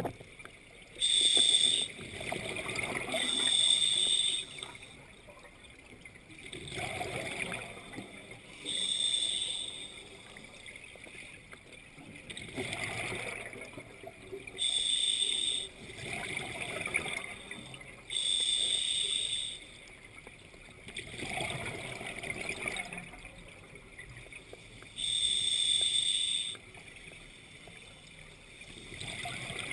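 Underwater scuba regulator breathing. A hiss on each inhale alternates with the noise of exhaled bubbles, about one breath every four to five seconds.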